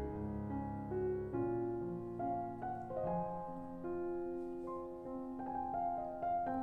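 Background music: a slow piano tune with held notes and soft chords.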